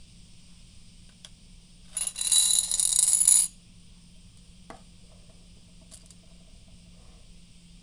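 Meiji Marble sugar-coated chocolates poured out of their cardboard tube onto a ceramic dish, clattering and ringing against it for about a second and a half. A single light tap and a faint click follow as the candies are nudged on the dish.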